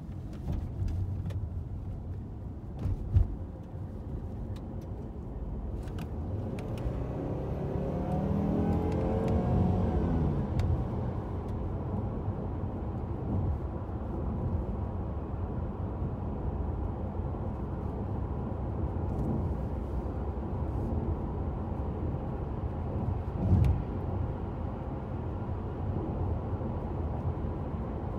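Car engine and road rumble heard from inside the cabin. About seven seconds in, the engine note rises for a few seconds as the car accelerates, then settles into a steady run. A short sharp knock comes near the start and another about two-thirds of the way through.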